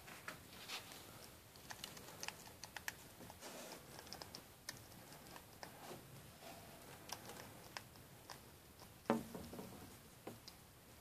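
Pet hedgehog crunching dry kibble in its bowl: faint, irregular little clicks and crunches, with one louder knock about nine seconds in.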